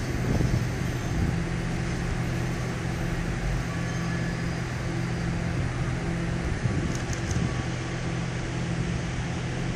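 Steady low mechanical hum of an idling train, made of a few constant tones under a steady hiss.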